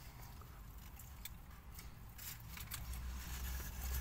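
Quiet car interior with a low steady hum underneath and a few faint small clicks, from chewing and the handling of foil-wrapped burgers.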